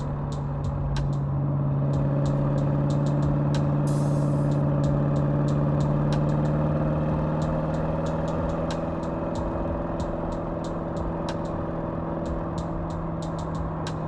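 Porsche Cayenne Turbo GT's twin-turbo 4.0-litre V8 cruising at steady revs: a constant low engine note over road noise, with scattered light ticks.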